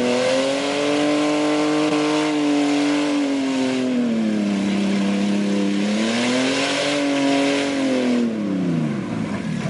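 Pickup truck engine revving hard under load in a mud pit. Its pitch holds high, sinks in the middle, climbs again and falls away near the end, with a steady hiss from the spinning tyres and mud over it.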